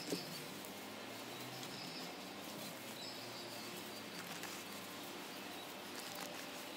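Quiet outdoor ambience with faint rustling of cotton triangular bandages being slid under a person's legs, and a small click just after the start.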